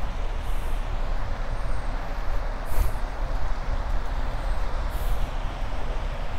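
Steady outdoor city ambience: a low rumble under a broad hiss, with a short high hiss about every two seconds.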